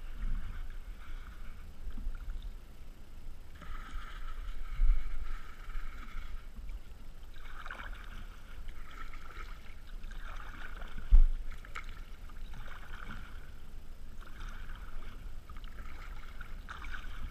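Kayak paddle strokes: water swishes and splashes off the blade about every two seconds, over a low rumble on the microphone. A single sharp knock comes about eleven seconds in.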